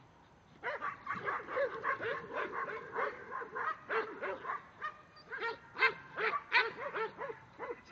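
A herding dog barking rapidly and repeatedly, several barks a second, starting about half a second in, as it works a small bunch of cattle.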